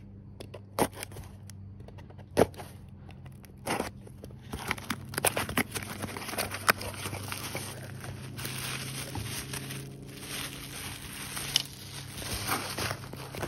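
Packaging being torn open and crinkled to unwrap a new motorcycle turn signal: a few sharp clicks at first, then from about four seconds in a continuous crackling, crinkling rustle with many small snaps.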